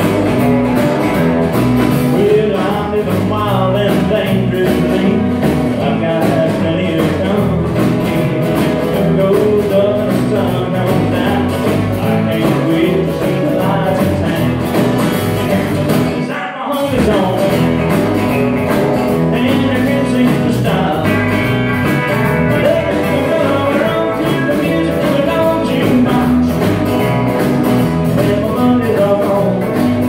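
Live country band playing: a male singer with acoustic guitar, electric guitar, electric bass and drums, with a brief break about halfway through.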